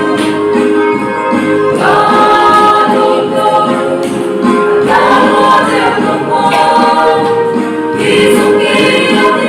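Mixed choir of young women and men singing a Simte-language hymn together, holding long chords that change every few seconds.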